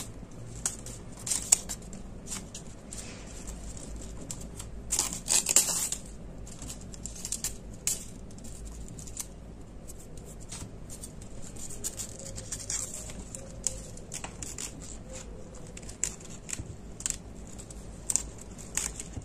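Green wrapping tape rustling and crinkling as it is stretched and wound around a thin wooden stick, with many small crackles and a louder crinkling burst about five seconds in.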